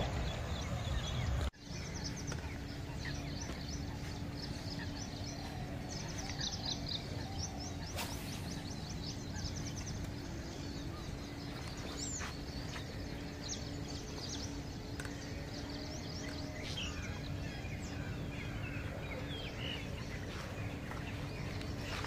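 Open-air ambience with small birds chirping in quick repeated series, over a steady background hiss and a faint constant hum. The sound drops out briefly about a second and a half in.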